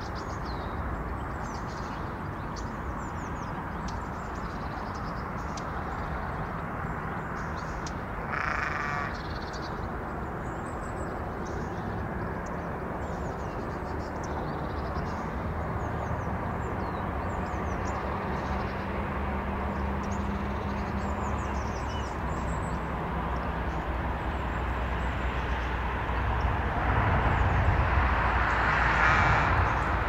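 Outdoor morning ambience: small birds chirping over a steady low rumble, with a short, louder call about nine seconds in and the sound swelling louder near the end.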